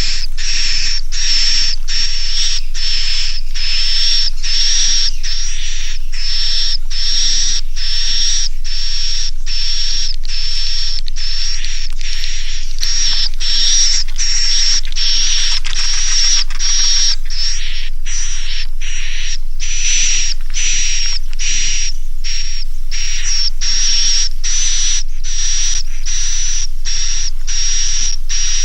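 Swiftlet roosting call (suara inap) played from a lure recording: a regular run of short, buzzy, high chirps, about one and a half a second, meant to draw young swiftlets to roost in a swiftlet house.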